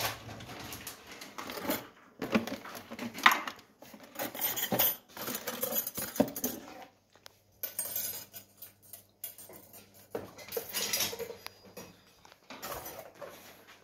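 Metal kitchen utensils clinking and clattering on and off as someone rummages through a cupboard of appliances and a box of metal mixer beaters, with one sharp clack about three seconds in.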